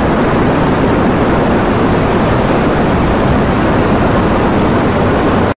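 Loud, steady rushing noise with no tone or rhythm, cutting off suddenly near the end.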